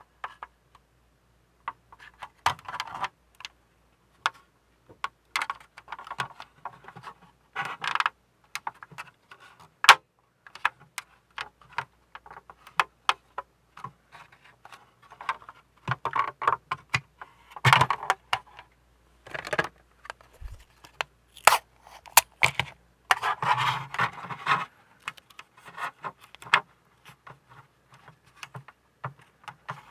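Hard plastic model-kit hull parts being handled and test-fitted: irregular sharp clicks and short scrapes as the pieces knock, slide and press against each other.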